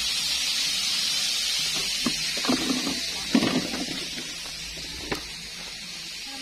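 Hot oil sizzling steadily in a wok of frying chicken, fading somewhat in the second half. A few short clatters and knocks of utensils sound in the middle.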